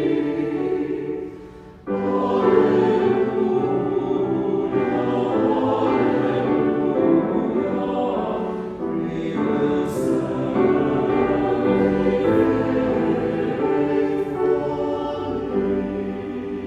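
Choir singing sustained chords in several voices, with a brief break between phrases about two seconds in and a slight fade near the end.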